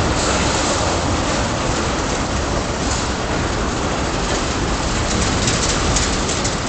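Freight train of tank cars rolling past: a steady rumble and rush of steel wheels on rail, with a run of sharp clicks from the wheels on the track about five to six seconds in.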